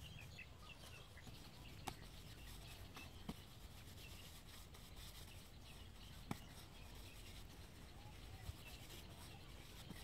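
Quiet outdoor ambience with faint bird chirps and a few sharp clicks or taps, about two, three and six seconds in.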